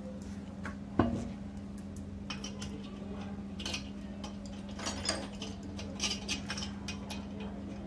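Metal lug nuts and a socket being turned by hand on a car wheel's studs: scattered light metallic clinks, and one sharp metal knock about a second in.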